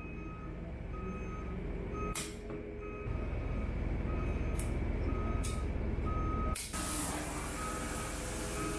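Locking pliers click as they are clamped onto a crankshaft's flywheel. About two-thirds of the way through, a gas torch is lit with a click and hisses steadily as it heats the flywheel so it swells for fitting. Throughout, a short electronic beep repeats about once a second over a low steady rumble.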